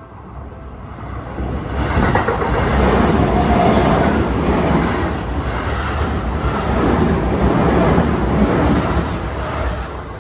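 Seibu 30000 series electric commuter train passing over a level crossing: its rumble builds over the first two seconds, stays loud for about seven seconds, and fades near the end.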